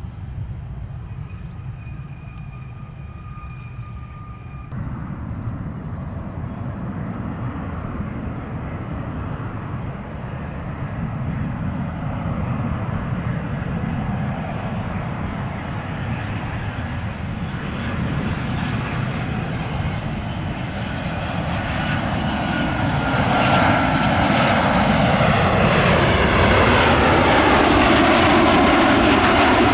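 Boeing 737-800 arriving to land, its jet engines growing steadily louder as it approaches and passes close by, with a whine that slides down in pitch as it goes past. The loudest part comes in the last quarter. For the first few seconds there is a quieter, steadier jet whine from a different aircraft.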